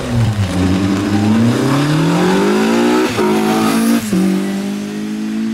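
Seat Ibiza rally car's engine revving hard as it accelerates up the course, climbing in pitch, with quick upshifts about three seconds and four seconds in.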